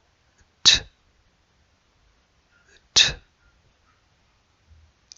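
The phonics sound of the letter T spoken twice: two short, breathy unvoiced 't' puffs about two seconds apart.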